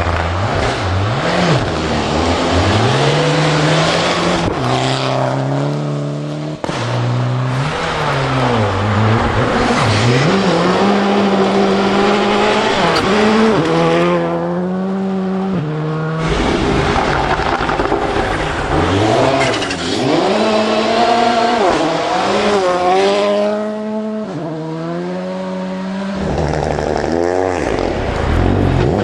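Rally car engines revving hard on a gravel stage, the pitch climbing and dropping back again and again through gear changes, with a car sliding past close by about halfway through.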